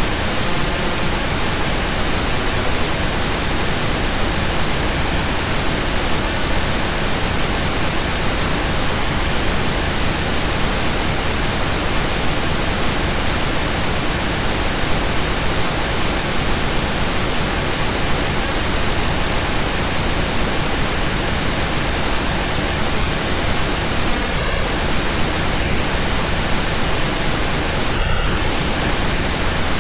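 Steady, loud pink-noise-like hiss from a relaxation soundtrack, with faint short high tones sounding on and off above it.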